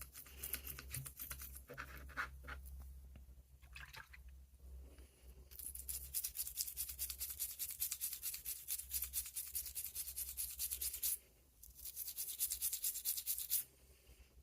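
A small brush scrubbing a pocket knife in quick, rapid back-and-forth strokes, starting about five seconds in after some light handling clicks, with a short break near eleven seconds before it stops just before the end.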